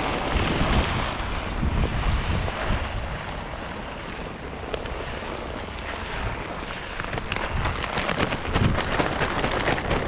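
Wind buffeting the microphone: a steady rumbling rush, with short rustling crackles near the end.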